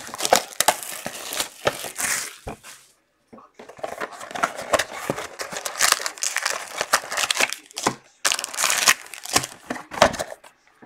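Plastic shrink wrap crinkling and tearing as a box of 2018 XR football trading cards is unwrapped, then foil card packs rustling as they are lifted out of the box. There is a short pause about three seconds in.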